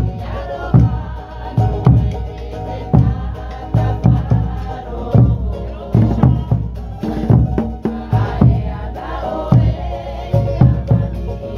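Polynesian drum music with group singing: a strong low drum hit about once a second, with lighter strikes between, under voices. It is the beat for a dance.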